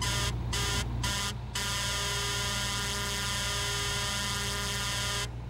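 E-One fire engine's air horns sounding in three short blasts, then one long steady blast of nearly four seconds that cuts off shortly before the end.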